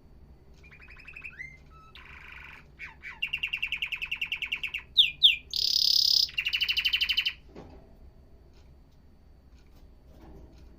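Domestic canary singing one song phrase: runs of fast repeated notes that change pitch from run to run, two loud swooping notes in the middle, and a higher run near the end. The song starts just under a second in and stops about seven and a half seconds in.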